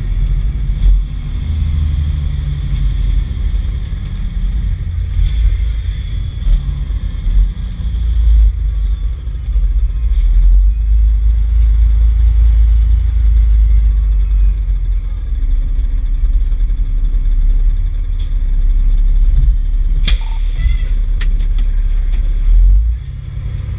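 2003 Pierce Dash fire truck's diesel engine and road noise heard from a camera mounted outside the cab while driving: a heavy, steady low rumble. There is a sharp knock about twenty seconds in, and the rumble eases off near the end as the truck slows.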